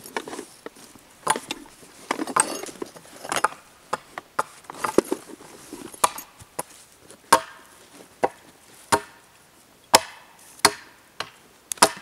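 Rustling of gear being handled in a canvas bag as a coil of cord is pulled out, then a run of sharp single knocks about a second apart, which are the loudest sounds.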